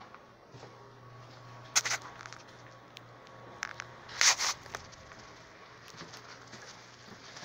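Rustling and handling noise on a hand-held phone microphone as it is carried, with two louder brushing rushes about two and four seconds in and a few light clicks near the end, over a low steady hum.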